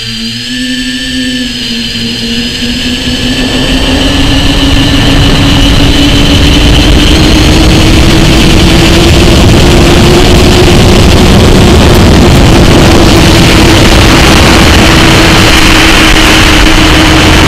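FPV quadcopter's motors and propellers whining in flight, picked up by the onboard camera: one steady tone that rises slightly in the first few seconds, with rushing air and prop noise building to a loud, steady level after about five seconds as the drone speeds up.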